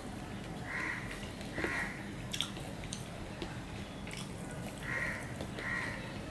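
Fingers mixing rice on a steel plate, with a few soft clicks. A bird calls in two quick pairs of short calls, about a second in and again about five seconds in.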